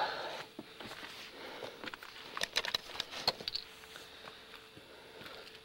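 Scuffs and light clicks of someone moving over stone, with a quick run of sharp ticks about two and a half to three and a half seconds in.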